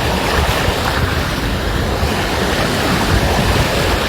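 Sea waves washing onto a beach, with wind buffeting the microphone: a steady, loud rush of noise.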